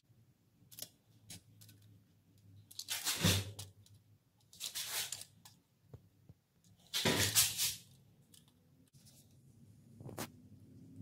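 Handling noise from working with hand tools: three short rustling scrapes, each under a second, spread a couple of seconds apart, with a few light clicks between them.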